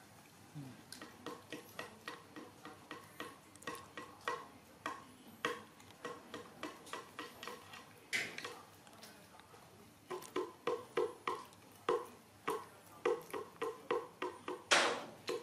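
Close, wet chewing and lip-smacking of someone eating soft cake bread, about three smacks a second, with a pause in the middle. There is a brief noisy rush about eight seconds in and another near the end.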